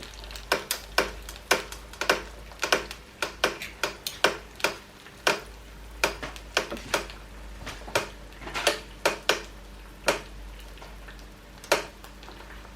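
Eggs frying in hot oil on a sandwich press's plate: irregular sharp pops and crackles of spitting oil, two to four a second, over a faint sizzle, thinning out towards the end.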